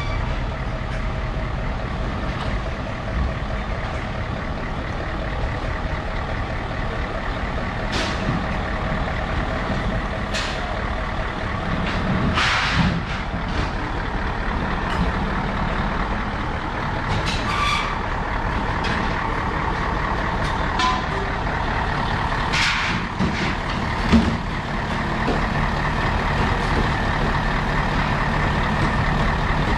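Heavy diesel truck engine running at idle, with several short hisses of released compressed air from the truck's air brakes, the longest near the middle.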